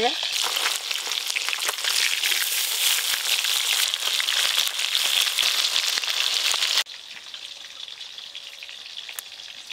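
Fish pieces frying in hot mustard oil in a wok: a dense sizzle full of fine crackles and spits. About seven seconds in it drops suddenly to a quieter, steadier sizzle.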